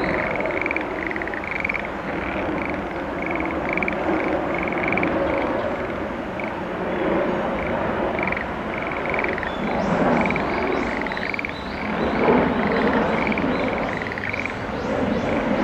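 Frogs calling in a chorus of short, repeated croaks, about three a second, over the broad rumble of a twin-engine Boeing 787-9 airliner flying over on approach with its landing gear down. The jet's rumble swells twice in the second half.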